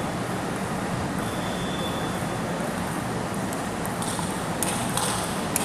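Steady rushing background noise of a large indoor hall. About two-thirds of the way in and again near the end come a few sharp clicks of table tennis balls being hit and bouncing at a nearby table.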